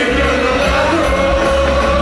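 Live Greek popular (laïko) band music with a singer, one long note held through most of it over a steady bass, heard from within the audience.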